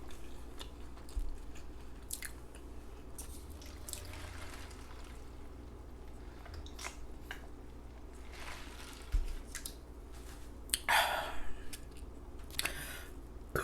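A person chewing fast food close to the microphone, with wet mouth smacks and small clicks, and a louder noisy burst about eleven seconds in.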